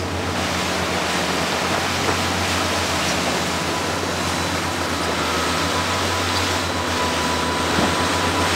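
Fishing boat running under way: a steady low engine drone under a constant rush of wind and water.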